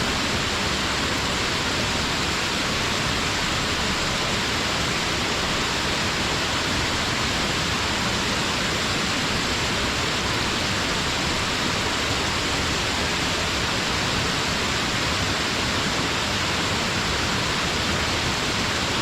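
Waterfall: a steady, unbroken rush of falling water, even in level and strongest in the upper range.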